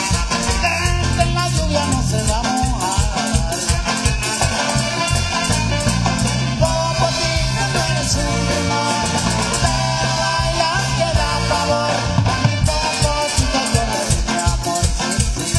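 Marimba orchestra playing upbeat Latin dance music live, with a steady beat.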